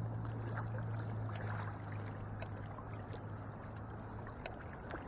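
Shallow saltwater lapping and trickling around a wading angler's legs, with small scattered drips and splashes. A low steady hum runs underneath and fades out after about three seconds.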